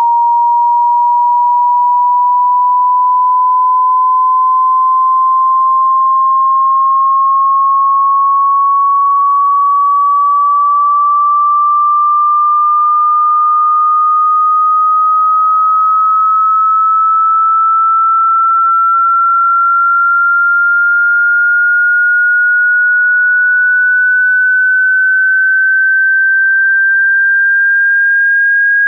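Hearing-test sine tone sweeping upward: a single pure electronic tone rising slowly and steadily in pitch at an even loudness.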